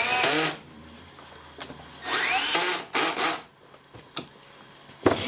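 Electric screwdriver run in several short bursts, its whine rising in pitch each time it spins up, driving the small screws that hold the saw's controller in place.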